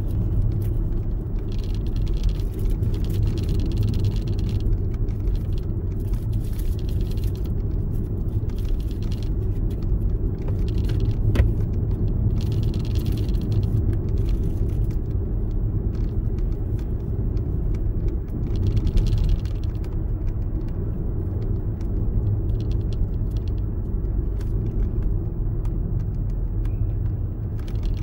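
Steady low rumble of a car driving on the road, heard inside the cabin, with tyre hiss that swells now and then over the rough pavement. A single sharp click about eleven seconds in.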